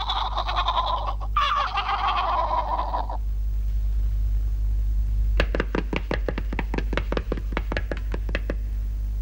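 Cartoon chickens clucking and squawking for about three seconds, then a rapid run of light, sharp taps, about five a second, near the end.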